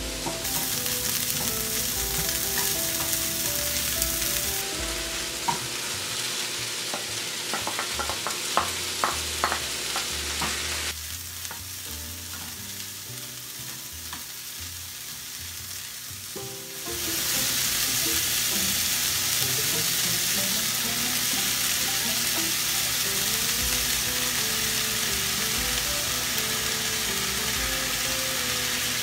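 Food sizzling and frying in a hot pan as it is stirred, with a few sharp utensil taps on the pan about a third of the way in. The sizzle drops quieter for a few seconds in the middle, then comes back louder, over light background music.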